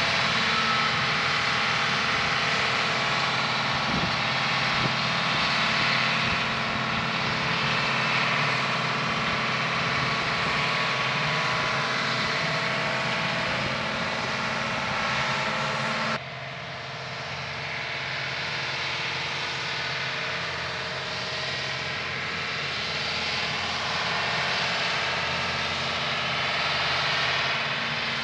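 A vehicle engine idling steadily under a steady hiss. The sound drops suddenly in level about sixteen seconds in, then carries on unchanged.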